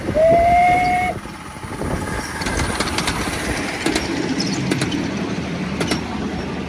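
A Tinkerbell-class 7.25 inch gauge miniature steam locomotive sounds its whistle once, a single blast of about a second that slides up slightly at the start. Then the carriage wheels click over the rail joints as the train rolls past.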